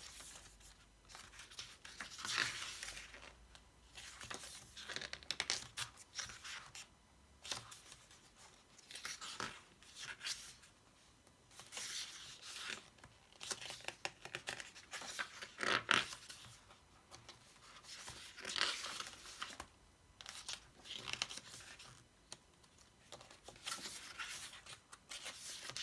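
Paper pages of a printed album photobook being turned and handled, rustling and crinkling in irregular bursts every one to three seconds.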